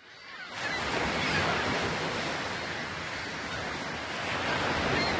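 Ocean surf washing, a steady rush of waves that fades in at the start.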